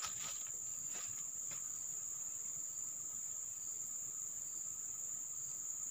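Steady high-pitched chorus of insects droning without a break, with a few brief soft rustles in the first second and a half.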